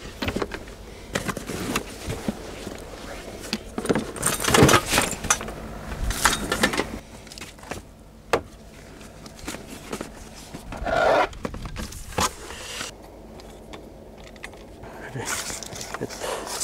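Gear being handled: irregular metallic jangles, clinks and scrapes with rustling, loudest about four to five seconds in and again around eleven seconds.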